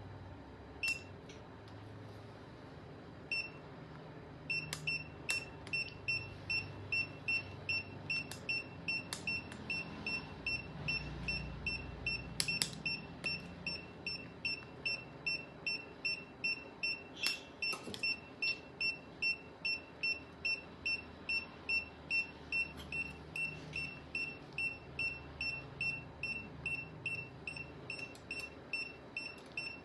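Surgical patient monitor beeping steadily, about two short high-pitched beeps a second, starting a few seconds in. This is a pulse tone tracking the anaesthetised cat's heartbeat. A few light metallic clicks of instruments are heard among the beeps.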